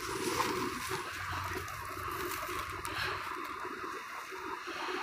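Faint, steady hiss-like background noise. A faint high thin tone comes and goes in the second half.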